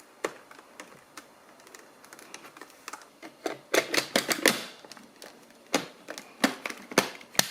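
Hard plastic parts of a Dyson V6 cordless vacuum being handled and clicked back together, with the filter being refitted. Scattered clicks and knocks include a rapid run of clicks and rattles about four seconds in, then several sharp single clicks near the end.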